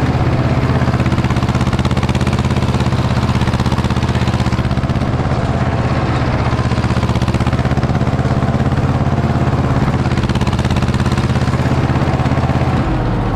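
Ursus C-330 tractor's two-cylinder diesel running loud and steady at high revs under load, pulling an elevator digger through a row of beetroot. The engine note changes and drops a little near the end.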